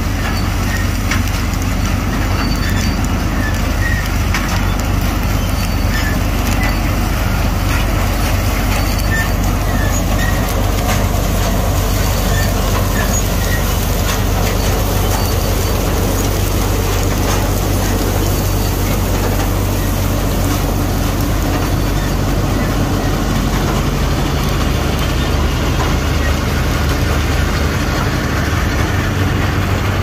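Punni combine harvester running at work, its engine, cutter bar and threshing drum cutting and threshing mustard crop in a loud, steady drone with a constant low hum.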